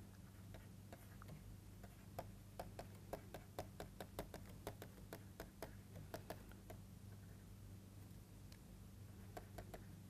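Faint clicks and taps of a stylus on a writing tablet as a line of equation is handwritten, several a second in the middle of the stretch and a few more near the end, over a low steady hum.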